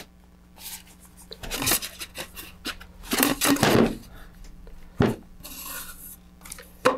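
Fiberglass rocket body tube and shock cord being handled on a tabletop: irregular rubbing and sliding noises, loudest about three seconds in, with one sharp knock about five seconds in.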